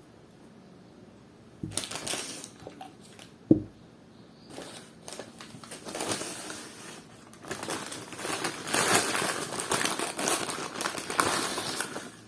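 Food packaging crinkling and rustling as it is handled close to the microphone, getting busier and louder through the second half, after two short knocks near the start.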